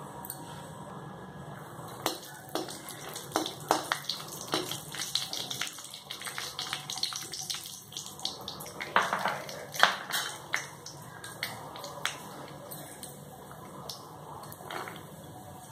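Cashew pieces frying in hot fat in a kadai, with a light sizzle, while a metal slotted ladle stirs them and clicks and scrapes against the pan. The clicks come thick through the middle and are loudest about ten seconds in, and a few softer knocks near the end come as raisins are tipped in.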